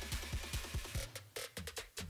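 Electronic background music with a steady, even beat; about halfway through, the bass and beat drop out briefly, leaving a few sharp hits.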